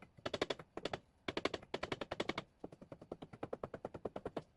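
Ratchet wrench clicking quickly in repeated runs, about a dozen clicks a second with short pauses between strokes, as bolts holding the housings of a 13B rotary engine are worked loose.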